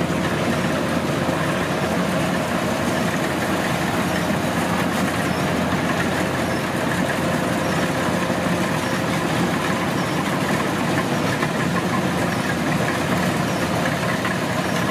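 Kubota DC105X combine harvester's diesel engine running steadily at an even speed.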